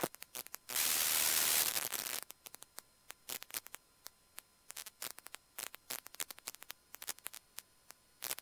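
Static on cockpit intercom audio: a burst of hiss lasting about a second and a half, then scattered short crackling clicks.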